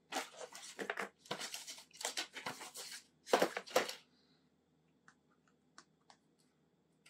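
Packaging being handled and opened: about four seconds of rustling, tearing noise, then a few light clicks and taps.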